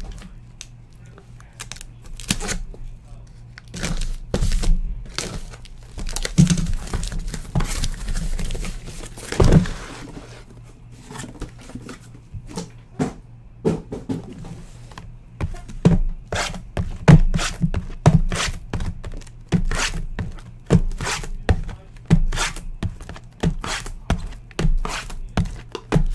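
Cardboard boxes being handled: a cardboard shipping case is torn open with tearing and crinkling, then sealed hobby boxes of trading cards are set down and stacked, a quick run of knocks and thunks in the second half.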